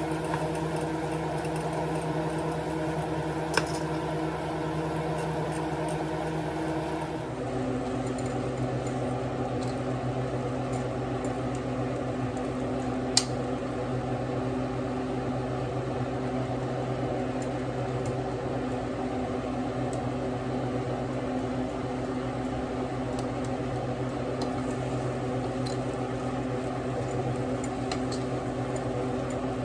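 Steady mechanical hum with several fixed pitches, shifting in tone about seven seconds in. Over it, a spoon stirs thick mung beans in a saucepan and knocks sharply against the pot twice.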